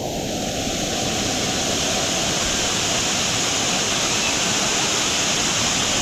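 Waterfall pouring over a rock ledge into a shallow pool, heard close up: a steady, loud rush of falling and splashing water.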